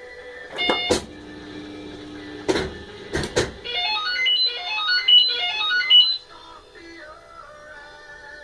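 Music: a few sharp clicks, then a quick run of short high notes leaping up and down for about two and a half seconds before fading.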